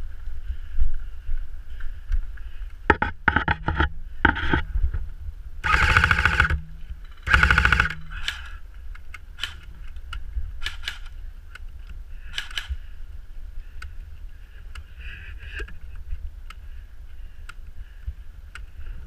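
Airsoft electric rifle firing two short full-auto bursts about a second and a half apart, with scattered single pops of gunfire around them. It is heard muffled through a waterproof camera housing.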